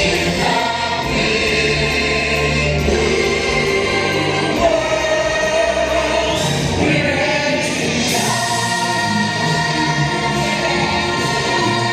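Stage musical song: an ensemble of voices singing together in chorus, holding long notes over backing music.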